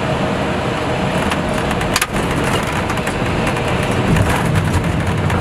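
Airbus A320 cockpit noise during landing: a steady rush of airflow and engine noise, with a single sharp thump about two seconds in.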